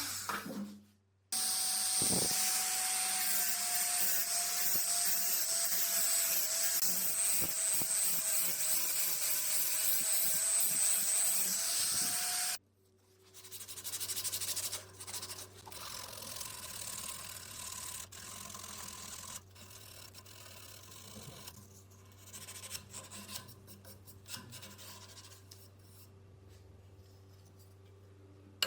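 A small power tool runs steadily under load for about eleven seconds, typical of grinding or buffing the cleaver's steel, then stops abruptly. Quieter irregular rubbing and filing by hand follows.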